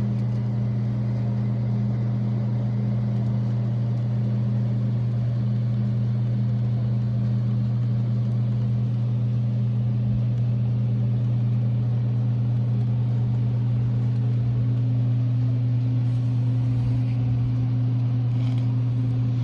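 Steady low hum that holds one pitch throughout, with a second, higher tone joining faintly about three quarters of the way in.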